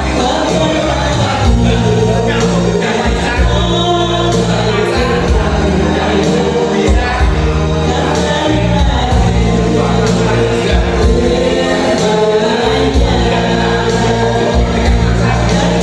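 Music with singing over a sustained bass line whose notes change every second or two.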